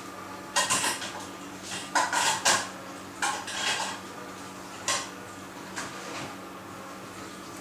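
A series of sharp clattering knocks, about seven of them, bunched in the middle, over a steady background hum.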